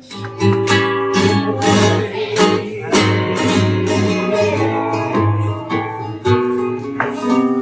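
Flamenco guitar playing an instrumental passage, chords struck again and again over sustained low bass notes.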